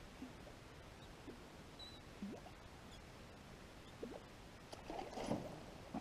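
Faint, scattered light knocks and small water plops from moving about in a canoe on calm water, the loudest knock about five seconds in. A brief high chirp sounds about two seconds in.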